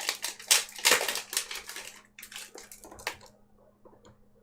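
Yu-Gi-Oh foil booster pack being torn open and its wrapper crinkled, a run of rustling tears that stops about three seconds in.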